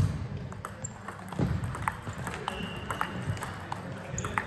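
Table tennis ball clicking against the table and rackets in play, sharp irregular clicks about two a second. A brief high squeak sounds near the middle.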